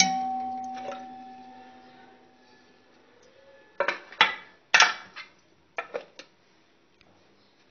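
A metal spoon struck against a metal pressure cooker: one sharp clink that rings on and fades over about three seconds, then several quick clinks and knocks about halfway through, as spice is tapped off the spoon into the pot.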